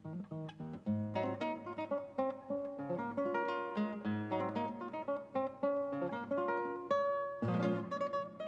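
Intro music: an acoustic guitar picking a melody, note after note.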